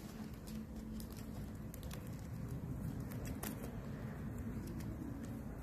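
Banana leaves rustling and crackling as hands tie a leaf-wrapped food parcel shut with a thin strip, in scattered light crackles over a low steady hum.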